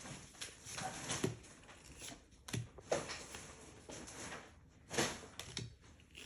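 Pokémon trading cards being handled and flipped through by hand: soft, irregular rustles and light taps, a few of them louder.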